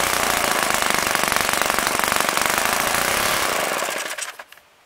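OS FS-120 Surpass four-stroke glow engine, swinging a 15x8 propeller, running steadily at high speed on a test stand with no bearing noise from its newly replaced bearings. Near the end it winds down and stops within about a second, as the fuel line is pinched off.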